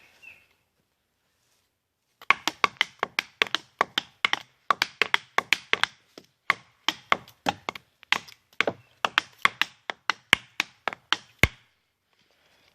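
Two batons striking a tree trunk in a rapid, irregular flurry of sharp wooden knocks, several a second with brief breaks. The flurry begins about two seconds in and ends with a hard final hit.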